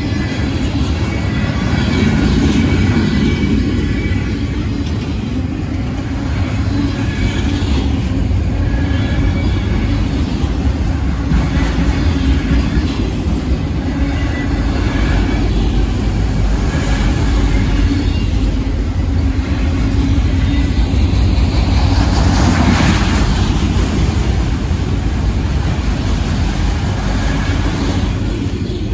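Freight train of autorack and covered hopper cars rolling past close by: a steady, loud rumble of steel wheels on rail. Faint high wheel squeals come and go in the first half.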